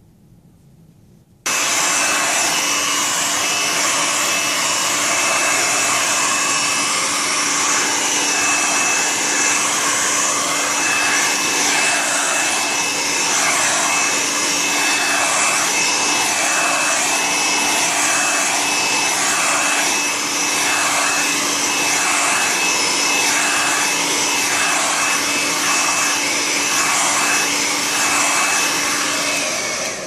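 Electric hair dryer switched on about a second and a half in, running loud and steady with a constant motor whine, its sound wavering regularly as it blows hot air at a small sensor module; it is switched off right at the end and fades away.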